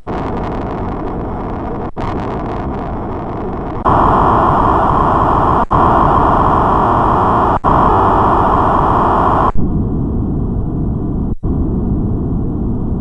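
Commodore 64 SID sound chips playing the diagnostic cartridge's filter test: a steady synthesizer hiss shaped by the chip's filter, heard from an original SID, then an X-SID about four seconds in, then an ARMSID near the end. It is loudest and brightest on the X-SID and duller on the ARMSID, and each stretch breaks off briefly every couple of seconds.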